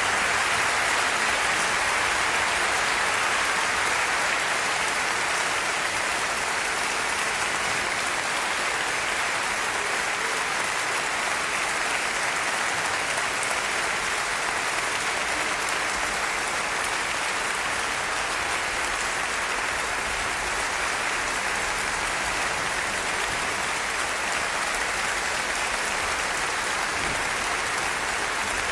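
Opera house audience applauding, a dense steady clapping that holds at an even level throughout.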